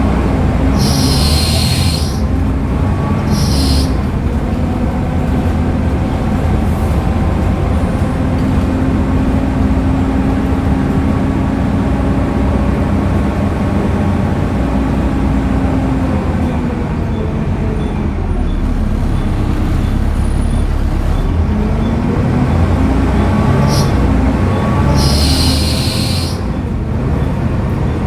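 Volvo B7TL bus's Volvo D7C 7.3-litre diesel engine running through its ZF Ecomat automatic gearbox, its note dropping and rising again in the middle as the bus changes speed. Short sharp bursts of air hiss come twice near the start and twice near the end.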